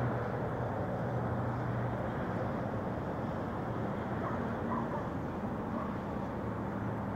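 Steady road traffic noise with a low, even hum.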